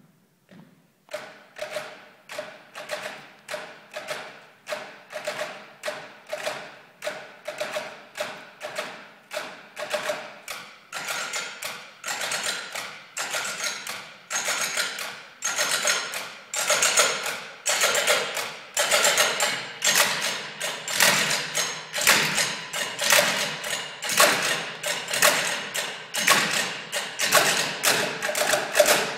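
Percussion ensemble drumming on stools with drumsticks: sharp, evenly timed hits at about two a second, starting about a second in and growing louder and busier as the piece goes on.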